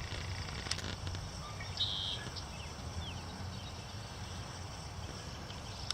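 Outdoor ambience: a steady low rumble with a few brief, high bird chirps, including a short buzzy call about two seconds in and a quick falling note a second later.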